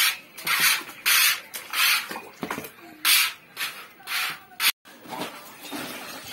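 Toy plastic water gun squirting in short hissing spurts, about seven of them, cut off suddenly about three-quarters of the way through.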